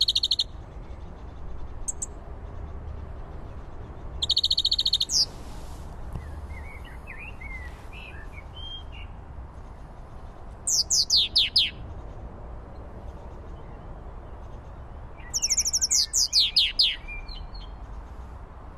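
European goldfinch singing in short bursts of high, rapid twittering trills and quick downward-sliding notes. There are four phrases a few seconds apart, with pauses between.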